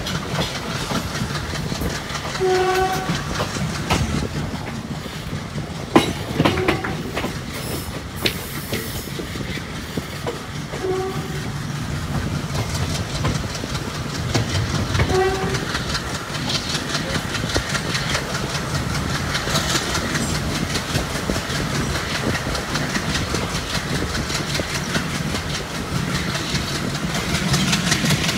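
A passenger train running: wheels clicking over the rail joints under the coach, with the WDP3A diesel locomotive's engine chugging up ahead. Three short horn toots sound near the start, the middle and about halfway through, and a sharp click comes about six seconds in.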